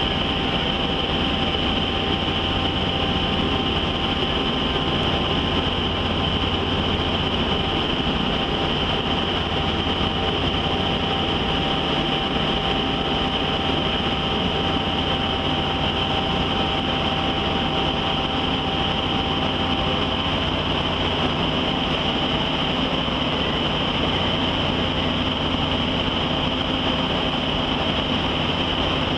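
Steady mechanical drone with a constant hum, even in level throughout; a faint steady whine fades out about two-thirds of the way in.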